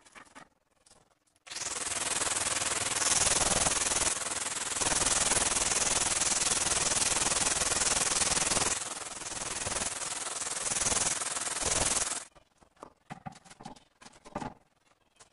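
Handheld angle grinder with a diamond disc cutting through a ceramic tile: a harsh grinding hiss that starts abruptly about a second and a half in, dips briefly twice, and stops about twelve seconds in.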